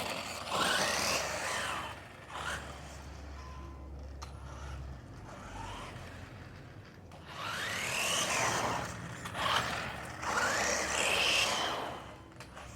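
WLtoys 14229 RC car driving: its electric motor whines up and falls back in three main bursts of acceleration, about a second in, in the middle and near the end, with the tyres scraping over the ground. The battery is half dead.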